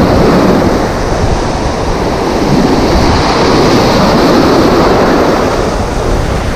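Sea surf breaking and washing around close to the microphone, a loud continuous rush of churning water, with a low rumble of wind on the microphone.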